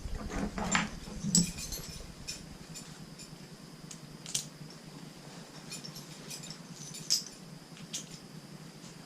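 Scattered light metallic clinks and rattles of climbing-saddle hardware (rigging plates, swivel and carabiners) as the saddle is weighted and shifted. A faint steady hum lies under them.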